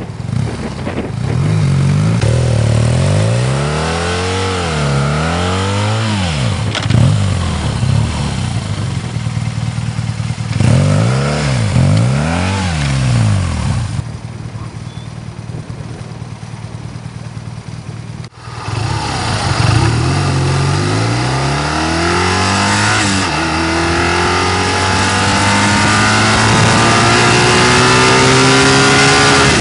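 BMW R1200GS boxer twin revving up and down in repeated blips as the bike is worked through deep sand, with a quieter, steadier stretch after the middle. After an abrupt break about two thirds in, the engine note climbs in a long, steady rise as the bike accelerates.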